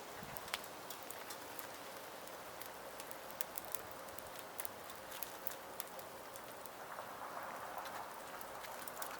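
Small wood fire crackling faintly, with scattered sharp pops and ticks over a steady low hiss.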